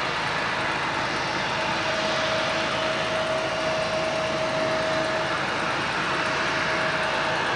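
Gulfstream II business jet's Rolls-Royce Spey turbofans running at taxi power: a steady jet rush with a steady whine that is loudest through the middle.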